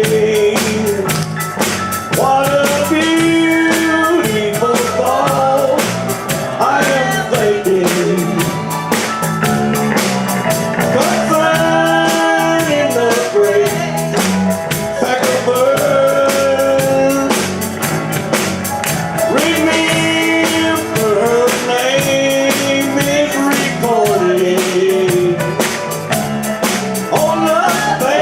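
Church band music: a country gospel song played with a steady beat under a gliding melody line.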